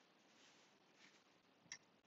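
Near silence, with one faint click near the end as a small black paint pan is handled on the sketchbook page.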